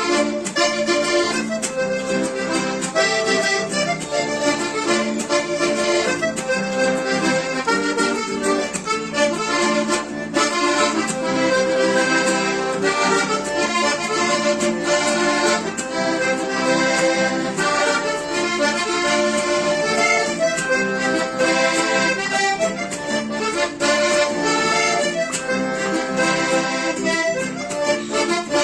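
Accordion playing a Panamanian cumbia: a quick, busy melody of many short notes over a steady percussive beat.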